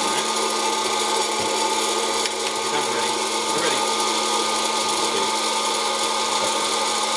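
Hot-air popcorn popper running: a steady motor-and-fan whir with a constant hum.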